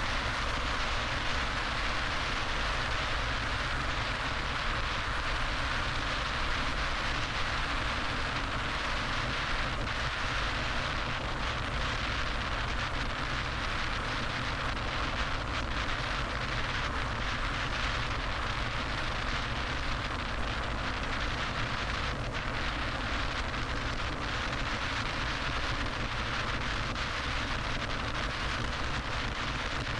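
Steady road and wind noise of a car driving at freeway speed, an even hiss and rumble with no changes.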